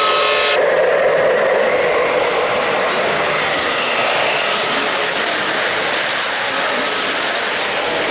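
O-gauge model train, a Santa Fe F-unit diesel pulling streamlined passenger cars, rolling past close by with a steady rumble of wheels on the three-rail track. A held tone stops about half a second in.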